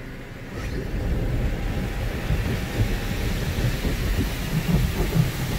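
Autec soft-cloth automatic car wash working over the car, heard from inside the cabin: water and foam spraying onto the glass and cloth brushes rubbing over the body make a steady rumbling wash, which gets louder about half a second in.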